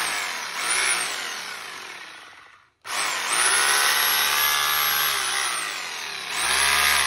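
Ryobi 800 W three-mode rotary hammer, set to hammer-only mode with no bit fitted, run free by its trigger. The motor whines up, blips once about a second in, and winds down to a stop a little before three seconds. It then starts again, runs steadily for about three seconds, eases off, and speeds up once more near the end.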